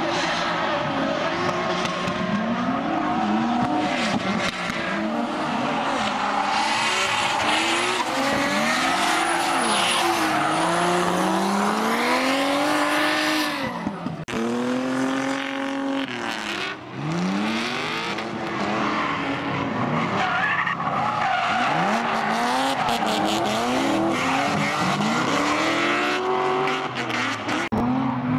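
Drift cars' engines revving hard, their pitch climbing and dropping again and again as the throttle is blipped and shifted mid-slide, over steady tyre screech from the rear tyres sliding and smoking.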